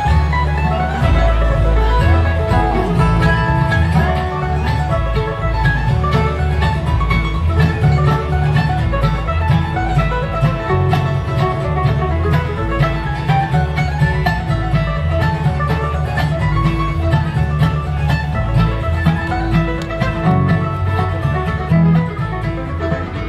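Live instrumental bluegrass from a string band: fiddle, mandolin, acoustic guitar and upright double bass playing together, with a steady walking bass under quick melodic runs.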